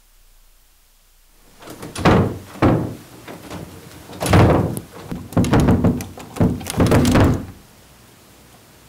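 A run of loud, irregular thuds and bangs, about eight heavy hits over some six seconds, starting about a second and a half in and stopping abruptly.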